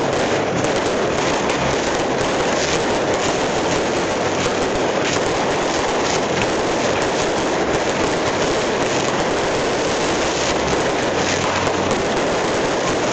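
Firecrackers going off in a dense, unbroken crackle of many small bangs, steady in loudness throughout.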